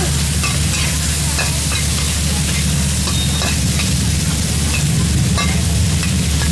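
Squid, shrimp and long beans sizzling in oil in a metal wok as a metal spatula stirs and scrapes them, the spatula clinking against the wok irregularly, about twice a second, over a steady low hum.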